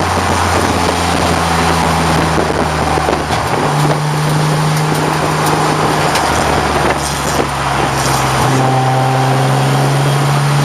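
A 1989 BMW 535i's straight-six engine running hard at racing speed under heavy wind and road noise. The engine note shifts in pitch in two steps, a few seconds in and again past the middle.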